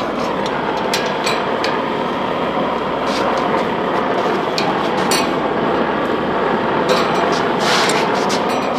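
Scattered light metallic taps and clicks from steel rose petals being worked with pliers and hammer, over a steady, loud rushing noise.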